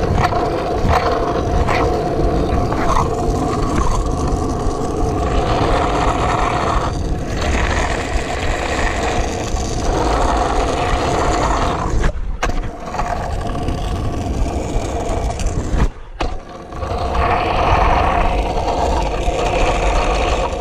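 Kick scooter's wheels rolling fast on asphalt: a steady scraping roar, with wind rumbling on the microphone. The sound dips out briefly twice, about 12 and 16 seconds in.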